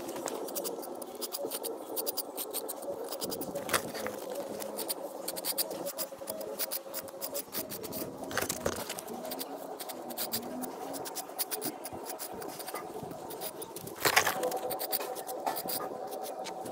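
A steel pointing trowel scraping and tapping mortar into the joint between stone coping slabs, in quick irregular scratches and clicks. A louder scrape comes about 14 seconds in, over a faint steady hum.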